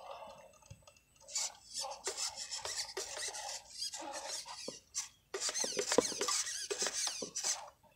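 RC rock crawler's electric motor and gears whining in stop-start bursts, the pitch rising and falling with the throttle, with the tyres scraping and grinding on rock as it climbs.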